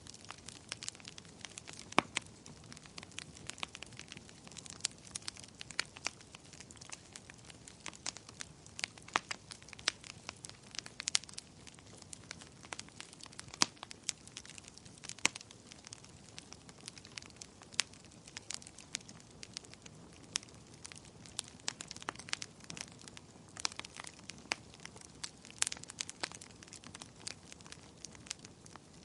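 Wood fire burning in a fireplace, crackling steadily with frequent irregular pops and snaps over a low hiss.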